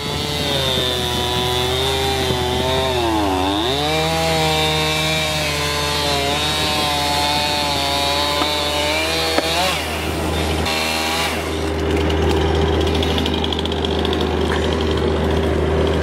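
Stihl MS 271 two-stroke chainsaw cutting through a thick fallen tree trunk. Its engine pitch sags as the chain bites about three seconds in, then recovers, and the tone turns steadier after about ten and a half seconds.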